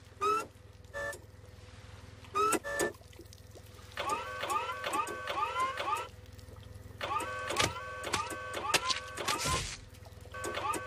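Cartoon forklift's motor humming steadily under short electronic beeps. From about four seconds in come quick runs of short rising chirps, a few a second.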